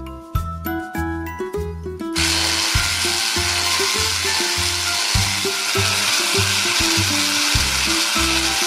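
A small battery motor in a toy kitchen appliance starts whirring about two seconds in and runs steadily, over background music with a rhythmic bass line.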